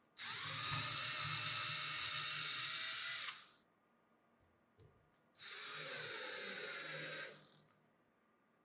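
Angle grinder switched on and run briefly twice: a high-pitched whine lasting about three seconds, then another of about two seconds. Each winds down quickly when released.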